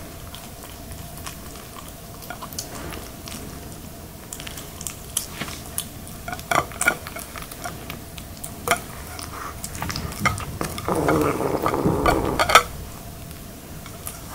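Red tabby kitten eating wet food from a ceramic dish: quick wet licking and chewing clicks, with small knocks of tongue and food against the dish. They come thicker in the second half, busiest near the end.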